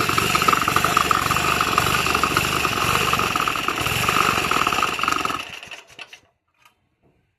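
A 7 HP petrol engine driving a concrete needle vibrator, running steadily, then the sound stops about five and a half seconds in, with a few last clicks.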